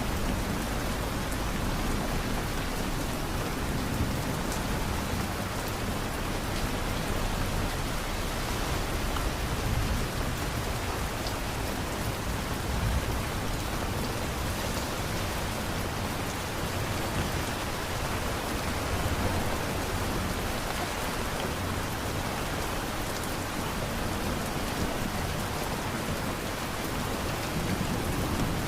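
Steady rain falling: an even hiss with scattered drop ticks and a low rumble that swells slightly now and then.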